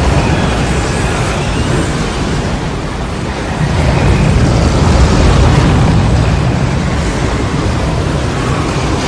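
Tornado sound effect: loud, continuous wind noise with a heavy low rumble, swelling about four seconds in.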